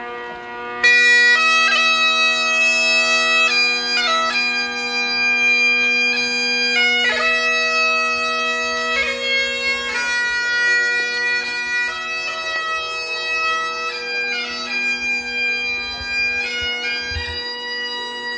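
Bagpipes playing a slow tune: the drones sound first, and the chanter comes in about a second in, holding long notes over the steady drone.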